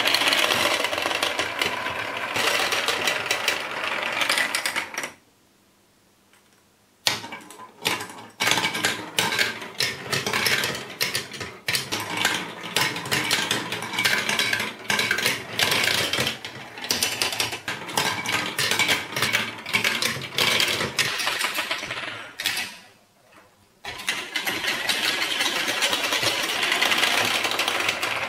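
Hollow plastic balls rolling and clattering down plastic building-block marble-run tracks, a dense continuous rattle. After a short silence about five seconds in, it turns to more separate clicks and knocks of balls on the plastic track and against each other, and becomes a dense rolling rattle again near the end.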